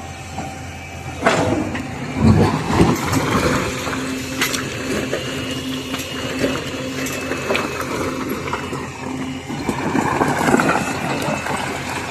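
Hydraulic excavator working rock: the diesel engine runs steadily under heavy knocks, scraping and grinding of stones against the steel bucket, loudest from about a second in to three seconds in and swelling again near the end.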